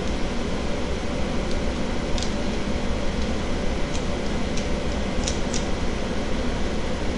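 Electric pet clippers running with a steady hum while trimming a cocker spaniel's coat, with a few faint ticks about halfway through.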